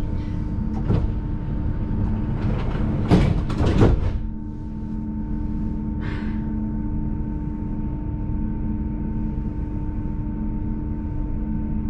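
Electric tram running: a steady low rumble with a constant electric hum. About three seconds in comes a brief cluster of loud clattering knocks, with a lighter one near one second.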